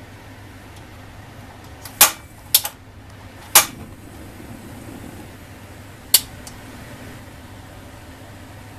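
A few short, sharp clicks or taps of kitchen items being handled, grouped between about two and four seconds in with one more a couple of seconds later, over a steady low hum.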